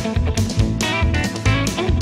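Background music: a guitar-led track with bass and a steady beat.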